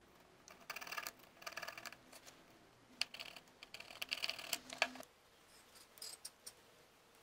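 An old, brittle plastic knife handle being pried apart and pulled off the metal tang by hand, with scraping and cracking in short bursts, a longer stretch about three seconds in, and a few light clicks near the end.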